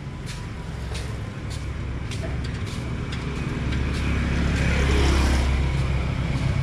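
A motor vehicle passing close on the street, its engine and tyre noise building to a peak about five seconds in and then easing slightly.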